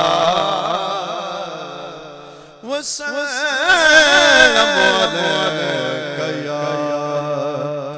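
A man's unaccompanied chanting voice, amplified through a microphone, sings the salawat (durood) refrain in long held notes with a wavering pitch. The first phrase fades out about two and a half seconds in, and a new phrase starts with a rising glide.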